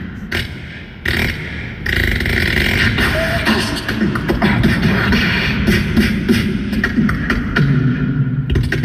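A beatboxer performing into a microphone, amplified through the arena's sound system: quick vocal drum beats and bass sounds. The level drops briefly near the start, then the rhythm runs on densely.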